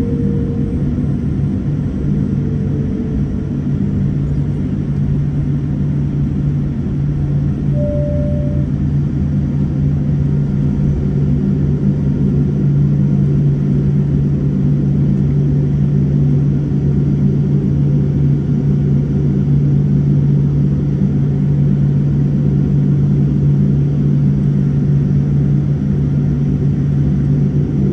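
Boeing 787-9 cabin noise: the steady low hum and rumble of the jet engines heard from inside the cabin, growing slightly louder partway through, with a brief steady tone about eight seconds in.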